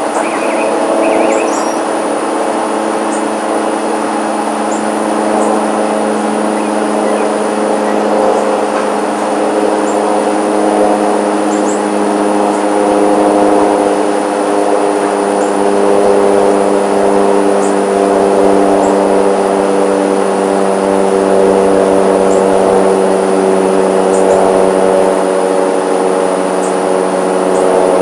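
Aircraft engine drone overhead: a steady sound with several held tones that shift slightly in pitch and grow a little louder.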